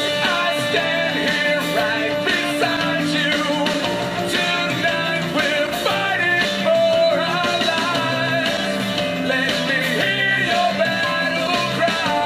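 Rock song with guitar and singing, played loud through a homemade Bluetooth speaker built into a 40 mm ammunition box with two round car-audio speakers in its front.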